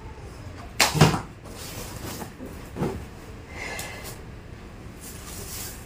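Handling noises from a pair of embellished jutti shoes being picked up and put down: a sharp knock about a second in, the loudest sound, a softer knock near three seconds, and brief rustling in between and near the end.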